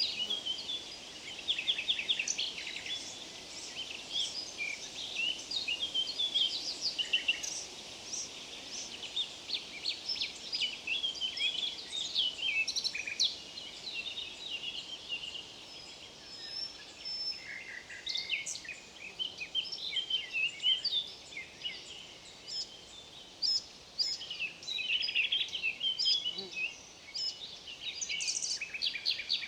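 A chorus of songbirds, many short chirps, trills and calls overlapping without a break, over a faint steady background hiss.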